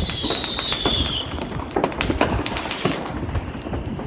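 New Year's Eve fireworks: many firecracker bangs and cracks going off in quick, irregular succession. A high whistling firework falls in pitch and dies out about a second in.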